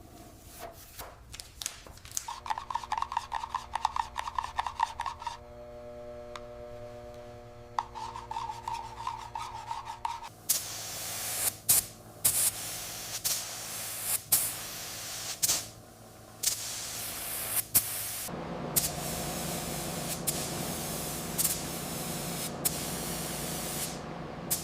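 Rubbing and rasping hand-tool strokes on a workpiece, broken into several stretches with sharp clicks and knocks between them, and a steady hum through the middle.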